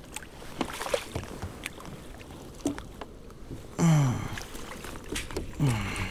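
A hooked pike being played beside a kayak: splashing water and many short knocks and clicks against the hull and gear. Two brief falling exclamations from the angler come about four and six seconds in.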